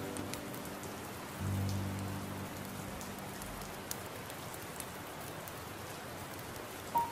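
Steady rain falling, with soft piano music over it: a low chord about a second and a half in that fades slowly, and another note just before the end.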